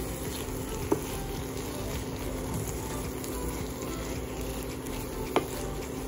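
Whole shrimp frying in a pan, a steady sizzle, while a wooden spatula stirs them, with two sharp knocks, one about a second in and one near the end.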